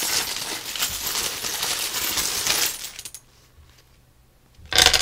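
Small casting charms rattling and clinking as they are shaken for about three seconds, then after a short pause a brief, louder clatter as they are cast out.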